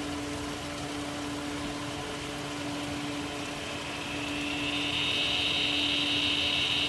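Outdoor ambience beside a garden pond: a steady low hum over a background hiss. About four and a half seconds in, a high, even drone fades in and grows louder.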